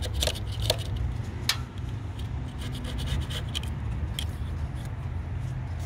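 Leatherman gasket scraper scratching old gasket material off the idle air control valve's metal mounting face on the throttle body, in short rasping strokes with a few sharp clicks, over a steady low rumble.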